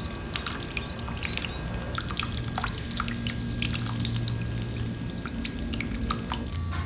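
Water dripping and splashing from a homemade plastic-bottle lotus fountain, many quick drops one after another, over a steady low hum.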